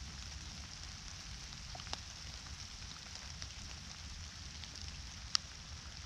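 Light rain falling steadily, an even hiss with scattered drops ticking close by, the sharpest tick about five seconds in.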